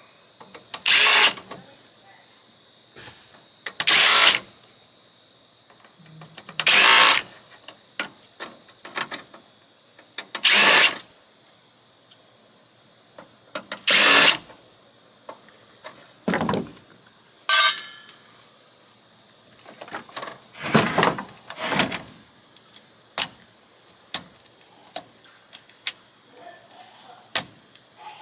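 Cordless power drill or screwdriver run in short bursts of about half a second to a second, roughly eight times a few seconds apart, backing screws out of an oscilloscope case. Small clicks and knocks of parts being handled fall between the bursts.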